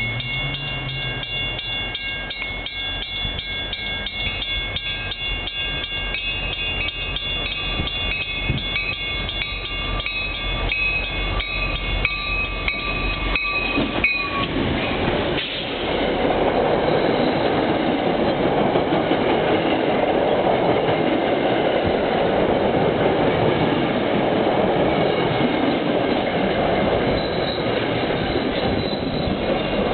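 MBTA commuter train approaching with its bell ringing in a steady repeated ring, the pitch dropping as the leading end passes about 14 seconds in. Then the train rolls past close by, a louder steady rumble of wheels on rails.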